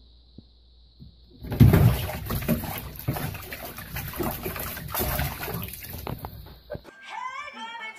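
A cat falling from the bathtub edge into the water about a second and a half in, then splashing and thrashing in the bathwater for about five seconds.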